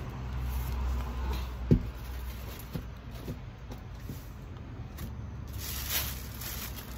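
Items being handled and packed into a box: a low rumble of handling, one sharp knock about two seconds in, a couple of lighter knocks, and rustling near the end.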